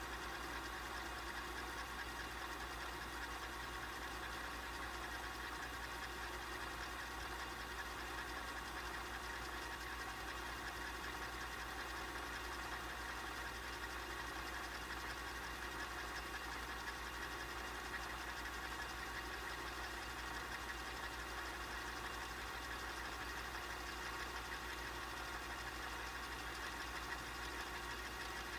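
Four-head VCR rewinding a VHS tape: a steady mechanical whir from the reel motor and spinning spools, with a thin high whine over it.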